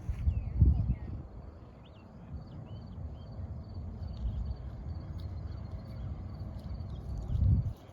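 Wind buffeting the microphone in low rumbles, with two stronger gusts, one about half a second in and one near the end, while small birds chirp faintly in the background.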